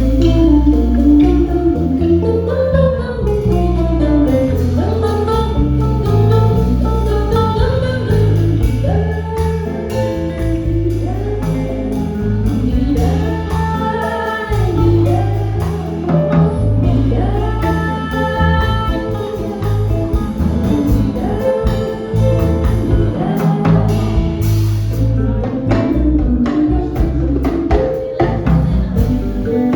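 A quintet of drums, bass, piano, guitar and voice playing, with a sung vocal line gliding over the band's steady bass and drum groove.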